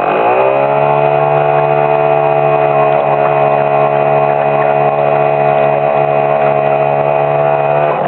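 A Riva motorboat's motor running loud and steady. Its pitch drops over the first half second, then holds level, and starts to shift again right at the end.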